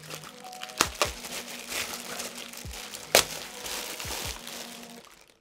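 Knife slitting open a plastic mailing bag, the plastic rustling and crinkling, with a few sharp clicks, the loudest about three seconds in. The rustling dies away about five seconds in.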